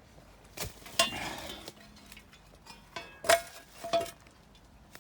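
Irregular knocks, scuffs and clinks, about half a dozen over a few seconds, as a person clambers out through the narrow entrance of a dug-out Anderson air raid shelter.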